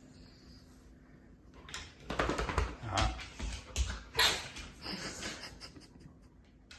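A chocolate Labrador retriever making a run of short, sharp sounds that start about two seconds in, the loudest and sharpest a little past four seconds, then trailing off.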